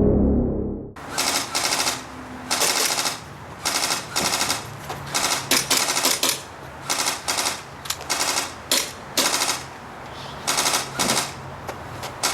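Airsoft electric guns firing many short full-auto bursts, one after another, each a rapid rattle lasting well under a second.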